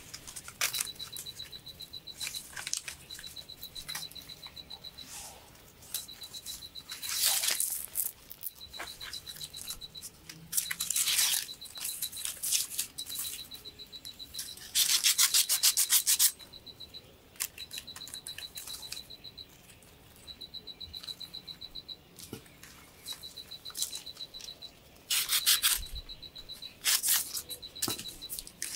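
Dry leaves and tinder rustling in several short bursts as hands arrange them on the ashes of a fire pit. Behind it, a high-pitched chirping repeats in quick trills of a second or two, over and over.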